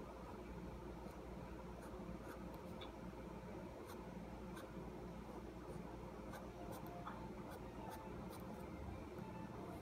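Fine-tip ink pen scratching faintly on paper while inking over pencil lines, with scattered small ticks of the tip. A low steady hum runs underneath.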